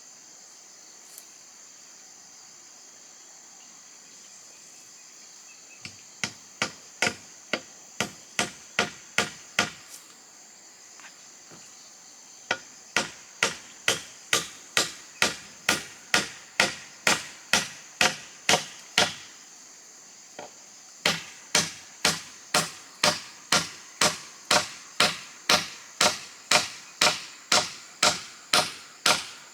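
Hammer blows, about two to three a second, in three runs with short pauses between, as a wooden frame is nailed together. A steady high drone of insects runs underneath.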